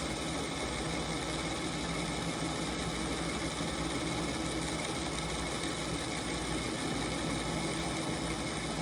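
Metal lathe running steadily with an even hum, taking a turning pass on the metal stock.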